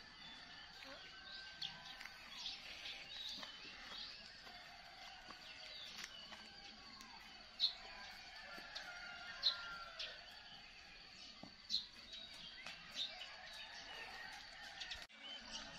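Birds chirping and calling, many short chirps scattered through, with a few sharper, louder ones.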